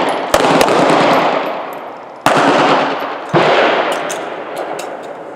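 Handgun shots fired singly along a firing line: one shot about a third of a second in, a weaker one right after, then two more at roughly one-second gaps. Each shot trails off in a long echo lasting a second or more.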